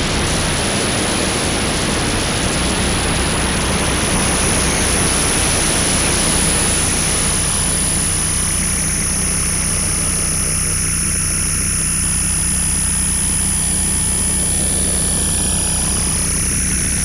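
Electronic noise drone from a live laptop sound-art performance: a dense, steady hiss over a low hum, with a thin high whistle held throughout. About halfway through, the middle of the hiss thins out, leaving the low hum and the upper hiss.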